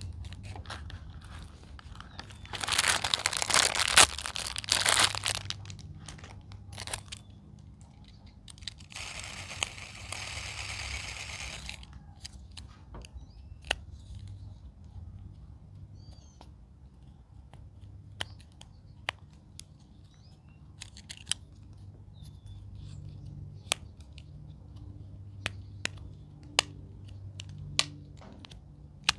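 Plastic packaging crinkling and tearing during the unboxing of fidget toys: a loud burst of crinkling about three seconds in, then a steadier rasp for about three seconds, then scattered light clicks and taps as plastic is handled.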